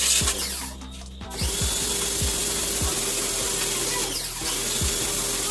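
Kawasaki HPB-302 1400-watt electric pressure washer running and spraying: a steady motor hum under a loud spray hiss. It cuts out briefly about a second in, then starts again and runs steadily.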